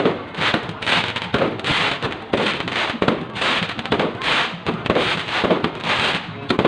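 Fireworks going off in a rapid, continuous barrage of bangs, about two to three a second.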